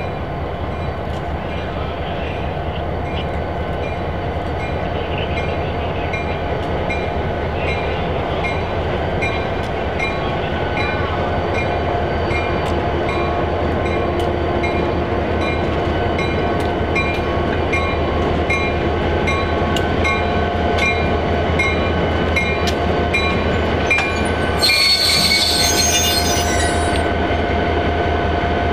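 Diesel-hauled train running, the low engine drone growing steadily louder, with regular clicking of wheels over rail joints and a high steady wheel squeal. A brief, sharper high-pitched burst comes near the end.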